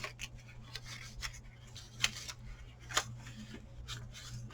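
Paper rubbing and scraping as a paper receipt is pushed into a snug paper pocket and catches, with scattered small scratches and two sharper clicks about two and three seconds in.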